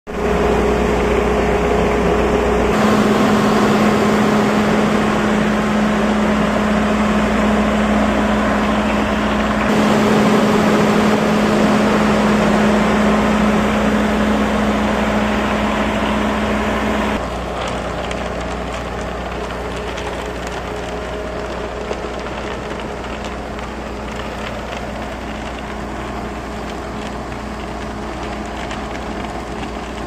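Diesel engine of an Ajax self-loading concrete mixer running steadily, a loud, even drone with a constant low hum. The sound shifts suddenly a few times and is quieter over the second half.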